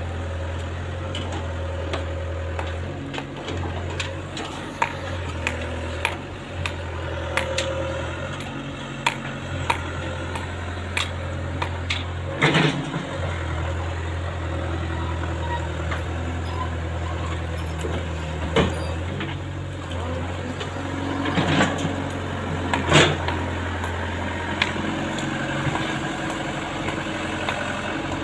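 Caterpillar tracked excavator's diesel engine running steadily, its note stepping up and down as the hydraulics take and release load. Scattered sharp knocks and clanks sound over it, the loudest about halfway through and again a few seconds before the end.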